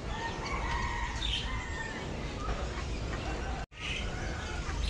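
Chickens and other caged birds calling and squawking over steady low background noise, with a sudden brief cut to silence about three and a half seconds in.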